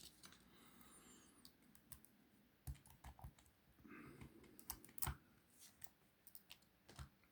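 Faint, scattered metallic clicks and scrapes of a lock pick and tension tool working inside a small wafer lock.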